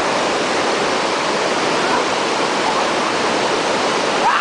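Rushing water of a waterfall: a steady, loud hiss of falling water.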